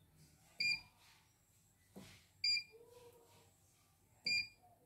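Three short, high electronic beeps from a CNY E900 embroidery machine's control panel, one for each key press, about two seconds apart.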